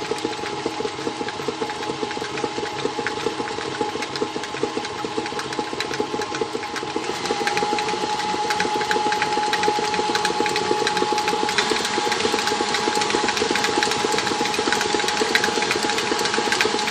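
Electric mixer running at a steady speed with its whisk attachment, whipping butter, honey and cinnamon: a constant motor hum with a fast, dense rattle of the whisk in the bowl. It gets a little louder about seven seconds in.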